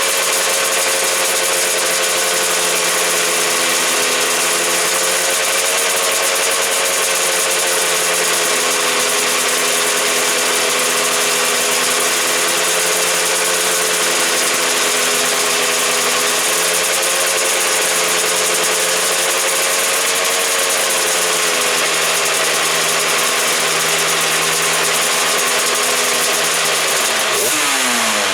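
Honda NSR500 big-bang-spec 500cc two-stroke V4 racing engine running steadily at a fast idle, its pitch wavering slightly, then blipped up sharply near the end.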